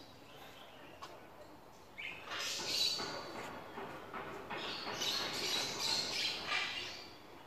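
Birds chirping, in a run of short high calls that starts about two seconds in.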